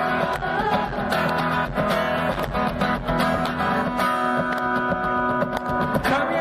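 Band music with a strummed guitar playing an instrumental passage between sung lines; the voice comes back in right at the end.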